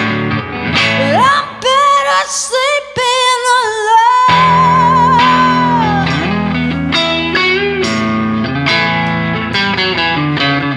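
A woman's singing voice over an electric guitar played live. The voice slides up into a high line about a second in and holds one long note with vibrato, while the guitar sounds sustained chords underneath. The guitar then goes on playing picked chords.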